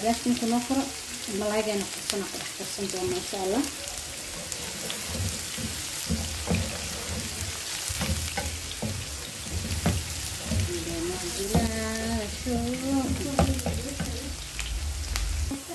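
Diced red onion sizzling in hot oil in a nonstick frying pan, stirred with a wooden spatula that scrapes and knocks against the pan now and then.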